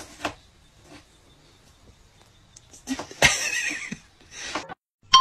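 A cat's sound about three seconds in, lasting under a second, with a shorter one about a second later; a few faint taps near the start.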